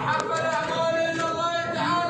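A man's voice chanting in a drawn-out, sung style, holding long notes and gliding between them.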